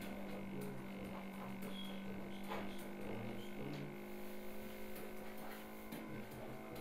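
A steady electrical hum, with a few faint clicks, the clearest about two and a half seconds in.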